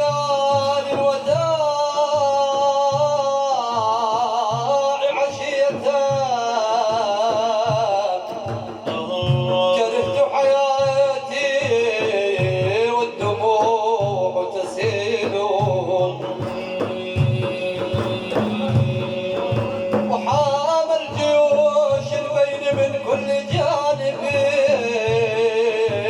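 Iraqi madeeh religious praise music: hand drums beat a steady, even rhythm under a long, wavering, heavily ornamented melodic line.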